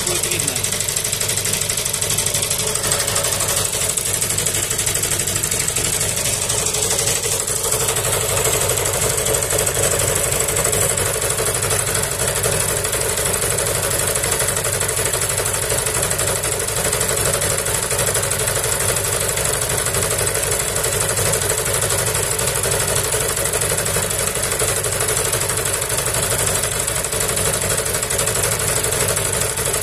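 The small gasoline engine of a homemade generator runs steadily under load, turning an induction motor used as the alternator. The load is a 1 kW heater and a 100 W lamp.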